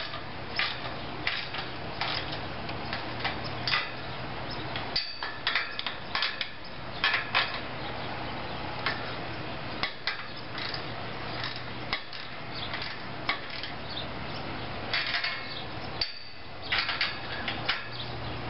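Wrench tightening swaged locknuts onto steel U-bolts that clamp a rotor mounting plate to a galvanized tower section: irregular metallic clicks and clinks, some in quick runs, over a faint steady hum.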